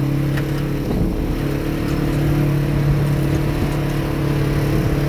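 Polaris RZR side-by-side's engine running steadily while driving on a dirt trail, heard from the seat, dipping briefly in pitch about a second in. Wind and tyre noise run underneath, with a few light knocks and rattles.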